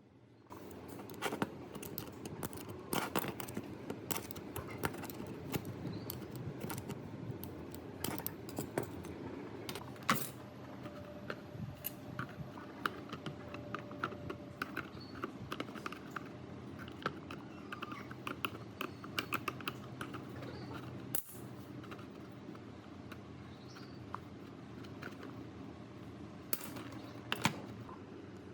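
Small metal parts and hand tools clinking, tapping and clicking irregularly during hands-on work on an old ceiling fan's metal parts, over a steady low hum.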